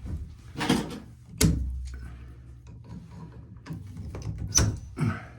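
Knocks and clicks of a Moen shower valve cartridge being pulled straight out of the valve body and handled, a few sharp clunks with the loudest about a second and a half in.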